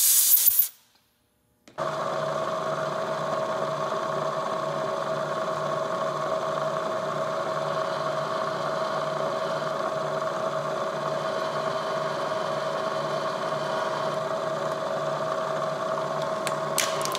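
A short hissing blast from a compressed-air blow gun. About two seconds in, a milling machine's spindle starts and runs with a steady whine and a low pulse about twice a second while a small twist drill bores into the stacked aluminum plates.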